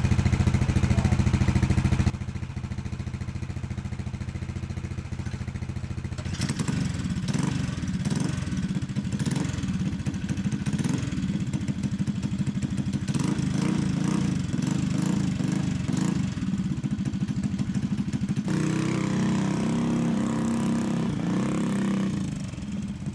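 Mini bike engines running: a steady idle that drops sharply in level about two seconds in, then from about six seconds the engines rev with a wavering, shifting pitch as the bikes pull away, fading near the end.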